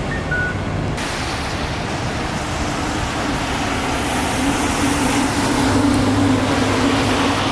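Road traffic at a pedestrian crossing: one short two-note descending electronic chirp of the crossing signal just at the start, then steady traffic noise with a vehicle engine hum that grows louder from about three seconds in.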